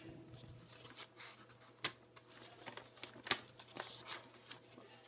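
Faint rustling of paper sheets being handled and turned, with a few sharp ticks.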